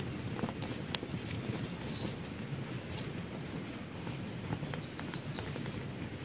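Dry pine needles and twigs catching fire and crackling, with irregular sharp pops and snaps over a steady low rumble as the flames take hold.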